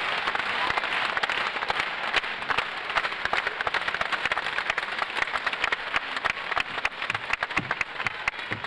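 Arena crowd applauding, a dense spatter of hand claps over a general crowd hubbub, with individual sharp claps standing out more in the second half.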